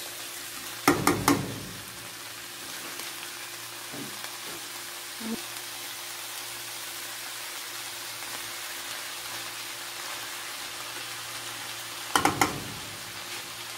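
Diced carrot, corn, peas and chicken sizzling steadily in a frying pan. A spoon knocks against the pan about three times a second in and again near the end as the mix is stirred.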